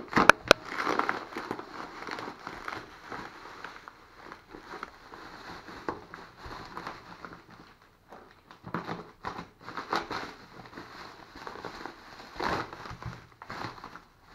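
Bubble wrap and plastic packaging crinkling and rustling as hands pull it apart, in irregular bursts, with two sharp cracks in the first second.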